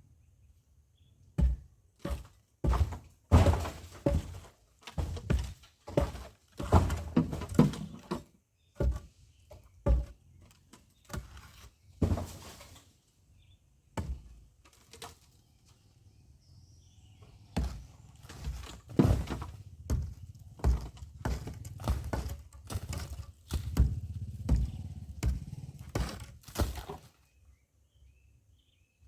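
Irregular heavy blows knocking down a pit latrine's wall, with material breaking and falling between strikes. There are a couple of short pauses.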